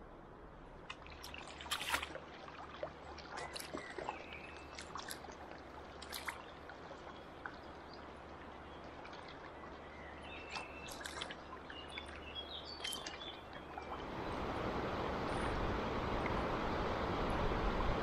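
River water flowing, with many small splashes and trickles close by. About fourteen seconds in, a louder, steady rush of fast-flowing water takes over.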